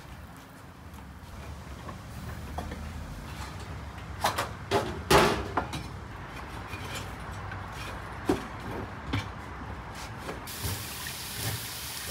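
Metal poker knocking and scraping inside a clay tandoor oven: a quick cluster of sharp clanks about four to five seconds in, then a single knock and scattered clicks. A faint steady hiss comes in near the end.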